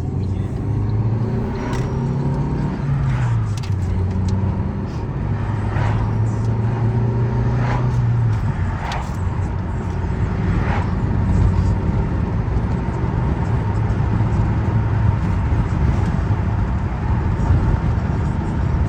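A 2014 Fiat 500L being driven, its engine hum and road noise heard from the cabin. The engine note steps down in pitch twice in the first half, and a few short knocks are scattered through it.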